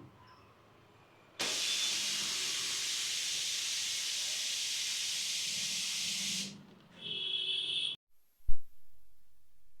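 Compressed air hissing steadily for about five seconds, starting suddenly and fading out, then a shorter hiss and a single sharp thump near the end.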